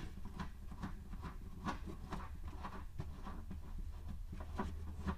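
Faint, irregular small clicks and rustles of hands unthreading the taillight nuts inside a Mustang's trunk, over a low steady hum.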